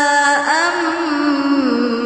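Melodic Qur'an recitation in tajwid style: a single voice holds a long, ornamented note, sliding in pitch about half a second in and dipping lower near the end.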